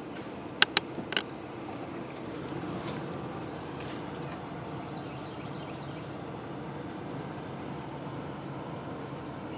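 Steady high-pitched insect drone over a low, even background rumble, with three sharp clicks in the first second or so.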